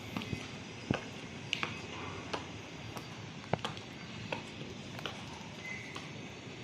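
Irregular light knocks and clicks, several a second apart, over a steady background noise.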